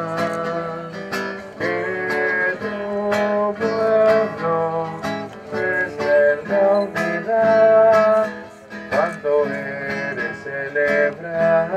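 Acoustic guitar strummed in a steady rhythm, accompanying a Spanish-language communion hymn in the gap between its sung lines.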